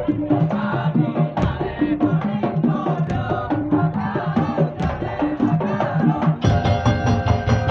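Madurese daul (tongtong) percussion ensemble playing a rhythmic, melodic piece, with drums and wooden tongtong under repeating pitched struck notes. The ensemble grows fuller and heavier in the low end near the end.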